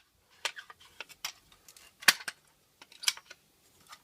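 Packaging being handled and pulled open: irregular light clicks and crackles with a few sharper snaps.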